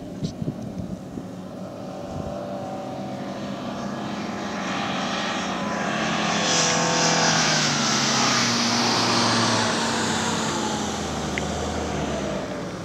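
Toyota Land Cruiser SUVs driving over sand dunes: engine drone with shifting pitch and a rushing hiss, growing louder to a peak about seven seconds in, then easing off slightly.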